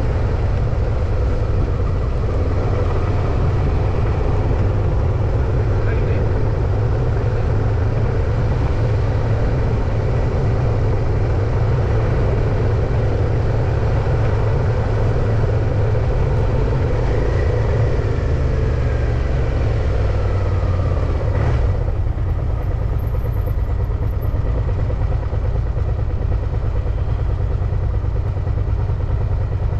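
Steady wind rumble on the microphone of a moving bicycle, mixed with road traffic noise. A falling tone sounds just before a short click about 21 seconds in.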